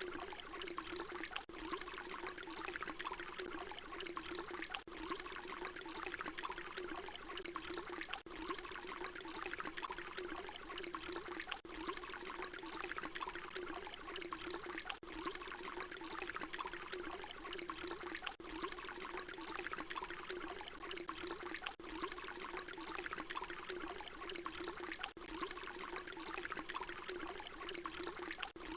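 Water pouring in a steady, continuous trickling stream. There is a brief dip about every three and a half seconds where the short recording loops.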